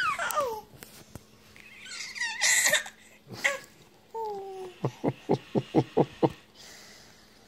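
Baby squealing: a high squeal sliding down in pitch at the start, a louder shrill squeal a couple of seconds in, then a short run of about seven quick laughing pulses, about four a second.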